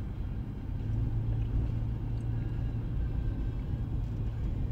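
Steady low rumble and hum of a car's engine and road noise, heard from inside the cabin while the car drives slowly.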